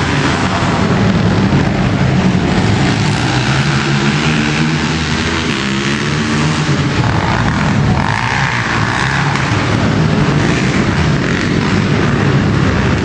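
Engines of several sport quads racing on a dirt motocross track, revving up and down as the riders accelerate and back off over the jumps.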